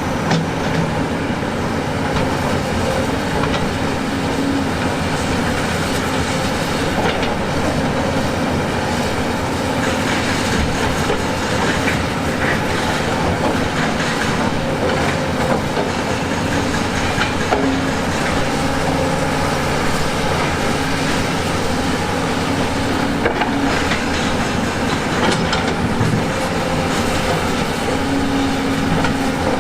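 Heavy diesel construction machinery, most likely a large hydraulic excavator, running steadily under load, with scattered clanks and rattles. The engine note rises and falls a little as the load changes.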